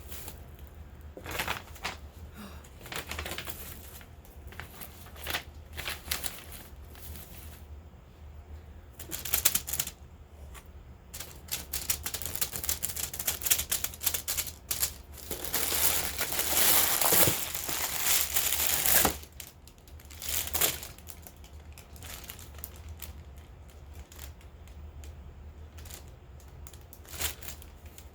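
Close handling of cosmetic packaging and products during an unboxing: scattered light taps and clicks, with a denser stretch of crinkling wrapping a little past halfway that lasts a few seconds, over a steady low hum.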